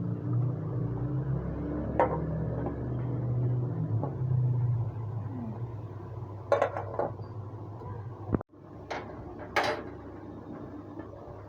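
Metal pots and utensils clinking and knocking during kitchen work, a handful of sharp clinks spread out, over a low steady rumble that fades out about halfway through.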